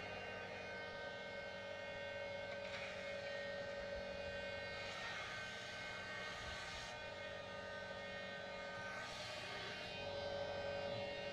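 Mastercraft 4-inch belt and disc sander running: a steady motor whine made of several constant tones over a hum, with a few brief swells of hiss.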